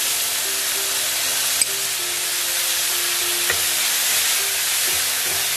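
Onion paste frying in hot oil in a kadhai, a steady loud sizzle as it is stirred with a wooden spatula, with two faint clicks, one about one and a half seconds in and another near the middle.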